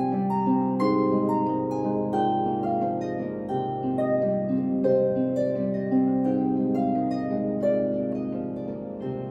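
Solo harp playing a slow piece: plucked melody notes ringing over sustained low notes, a little quieter near the end.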